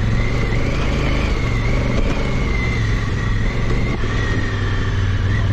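Honda CRF1000L Africa Twin's parallel-twin engine running steadily, with a thin steady whine above it.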